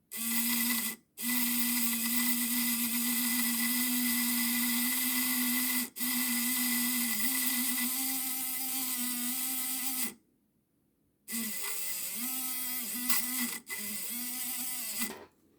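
Electric motor of a Märklin 8880 Z-scale model DB class 218 diesel locomotive running with a steady whine. It cuts out briefly about a second in and again near six seconds, stops about ten seconds in, then runs again for about four seconds with a wavering pitch.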